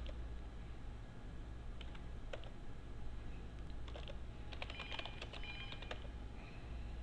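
Computer keyboard typing: a few scattered keystrokes, then a quick run of keys about four and a half to six seconds in, over a steady low hum.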